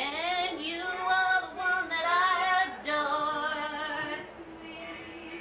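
A woman singing long, wavering held notes, as in a song; the voice grows softer near the end.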